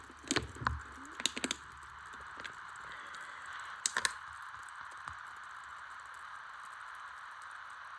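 Steady patter of rain with a few sharp drips or taps, a cluster of them about four seconds in.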